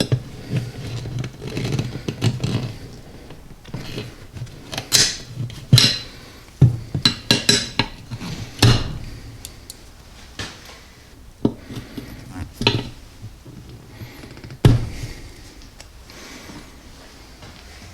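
Hand tools and metal parts clinking and knocking irregularly against a quad wheel rim while a new valve stem is fitted into it.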